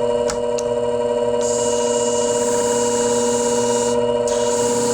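Shear sharpening machine humming steadily as its motor spins the stone. From about a second and a half in, a shear blade's edge hisses against the spinning stone to raise a burr toward the tip. The hiss stops briefly near four seconds in as the blade is lifted, then resumes.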